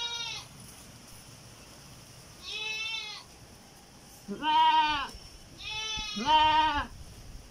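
Heavily pregnant doe goat bleating: about five short, wavering calls, some higher and some lower, the loudest in the middle and two back to back near the end.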